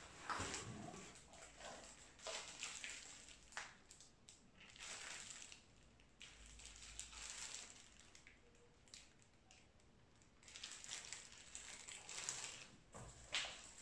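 Plastic packaging and bags rustling and crinkling on and off as wrapped parts are handled and lifted out of a cardboard printer box.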